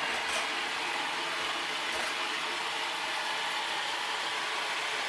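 iRobot Roomba 4000 robot vacuum running steadily as it sets off across the floor, a constant whir of its motors and brushes, with a couple of faint ticks.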